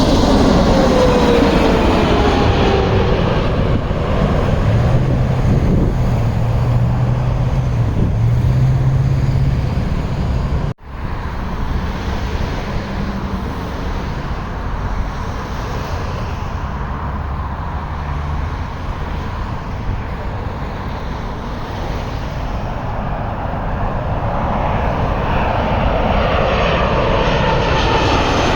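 Jet airliners on final approach passing low overhead. As the first plane goes by, its engine whine falls in pitch and the noise fades to a steady rumble. There is a sudden brief dropout about eleven seconds in, and near the end the next plane's engines grow louder with a rising whine.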